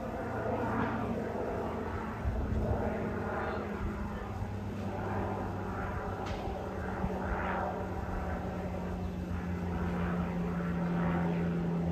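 Single-engine propeller airplane droning overhead, a steady engine tone that sinks slightly in pitch and grows a little louder near the end.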